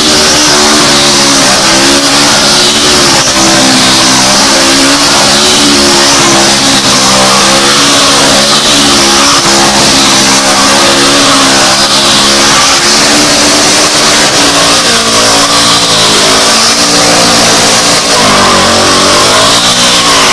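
Honda 750-powered reverse trike rat rod doing burnout donuts: the engine revs hard, its pitch wavering up and down throughout, over the steady hiss of the rear tyre spinning on the pavement. The pitch dips and climbs again near the end.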